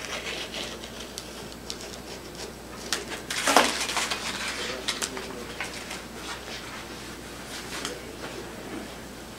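Rustling and scraping of a self-adhesive sandpaper strip being pressed and rubbed down onto a wooden table saw sled with a wooden block, with light clicks and a louder scrape about three and a half seconds in.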